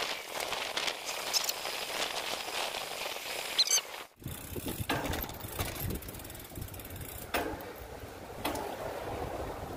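Bicycle riding noise: wind on the microphone and tyres rolling on pavement. The sound cuts out abruptly about four seconds in, then carries on with more low rumble.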